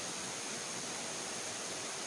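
Steady rush of flowing river water, with a thin, steady high tone over it.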